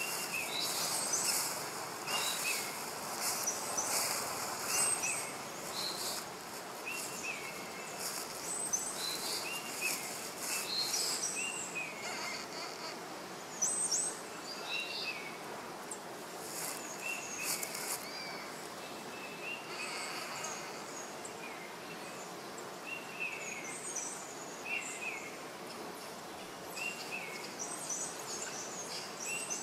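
Forest ambience: small birds chirping in short repeated calls every second or two over a steady hiss, with a few bursts of high insect buzzing in the first half.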